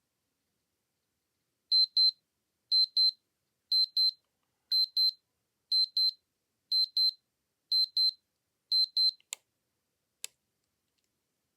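Piezo alarm of a small digital timepiece sounding a high-pitched double beep once a second, eight times, then stopping. Two sharp clicks follow about a second apart.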